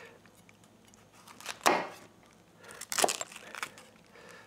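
Chef's knife cutting the hard core out of a white cabbage on a wooden cutting board: two sharp cuts about a second apart, the second followed by a few lighter taps.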